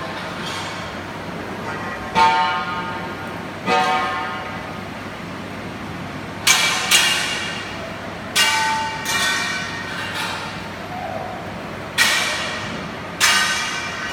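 Metal struck repeatedly with a hammer: about eight irregular blows, some in quick pairs, each ringing out and dying away over about a second.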